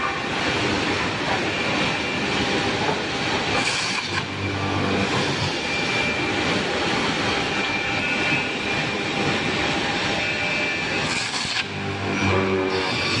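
A four-head automatic hinge boring machine running, its drill motors spinning and the bits boring hinge-cup holes into a plywood panel: a dense, steady mechanical noise. A lower hum comes in about four seconds in and again near the end.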